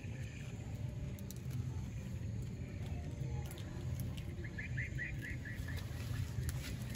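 A small bird calls a quick run of about eight short chirps a little past the middle, over a steady low outdoor rumble and faint scattered clicks.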